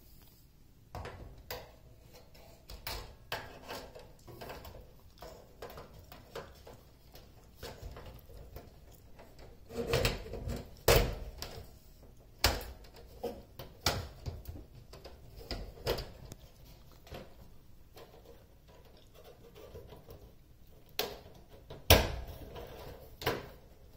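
Scattered plastic clicks, knocks and scrapes as a 4-foot LED tube is pushed and twisted into the lamp holders of a T12 fluorescent fixture. A cluster of louder knocks comes about ten seconds in and a sharp knock near the end.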